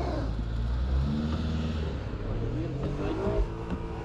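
A van's engine revving as the driver tries to reverse out of deep snow, the revs rising and falling; the van is stuck and not moving.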